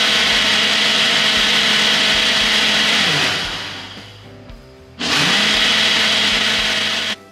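Ninja countertop blender with a single-serve cup running at full speed, blending a smoothie. It winds down about three seconds in and pauses briefly while its timer keeps counting down, as in an automatic pulse program. It spins back up about five seconds in and cuts off suddenly near the end.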